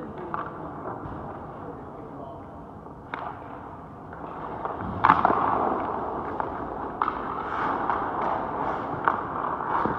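Hockey stick clacking against a puck on the ice, a few sharp hits with the loudest about five seconds in, over skate blades scraping the ice from about four seconds on.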